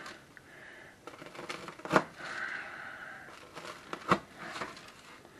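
Knife sawing and crunching through toasted garlic-bread crust, good and crunchy, with two sharp knocks about two seconds apart as cuts go through, and smaller clicks between.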